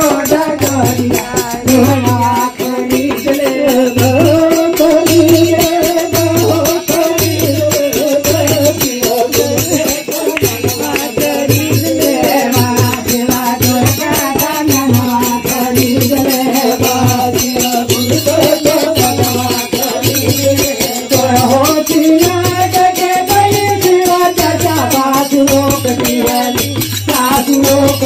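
Devotional bhajan: singing over a dholak playing a steady low beat, a little faster than one stroke a second, with hand clapping and jingling percussion.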